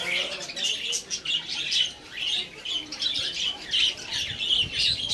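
A flock of budgerigars chattering, with many short chirps overlapping and never pausing.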